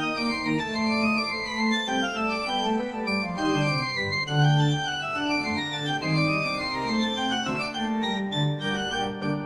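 Instrumental background music: a melody of sustained, organ-like keyboard notes over a steady accompaniment.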